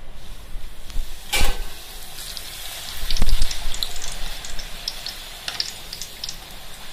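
A thin poori frying in hot oil in an aluminium kadai, a steady sizzle with many small crackles. A sharp knock comes about a second and a half in and a dull thump near the middle as the poori is handled with a slotted spatula.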